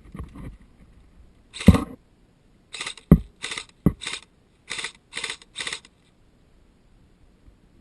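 Airsoft guns firing a string of about nine short, sharp shots, each a brief hiss. The loudest few have a low thump, as if fired close by.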